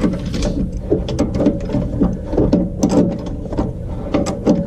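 Socket ratchet wrench clicking in short, uneven runs as suspension bolts are turned.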